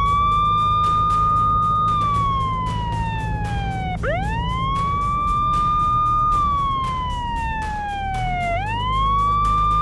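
Police car siren wailing. Its tone sweeps up quickly, holds for about two seconds, then slides slowly down, repeating about every four and a half seconds over a low steady hum.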